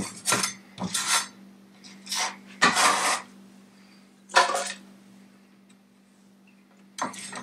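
Kitchen knife cutting ginger on a wooden cutting board: several separate knocks and scrapes of the blade on the wood in the first five seconds, a quiet pause, then one more near the end.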